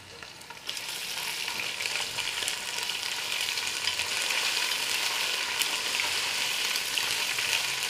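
Hot oil sizzling and crackling in a pot as whole spices and garlic paste fry among browned onions, stirred with a slotted spoon. The sizzle comes up within the first second and stays steady.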